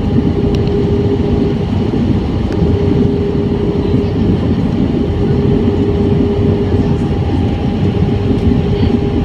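Airbus A320 cabin noise heard from a window seat over the wing: the steady rush of the jet engines and airflow, with a steady humming tone running through it.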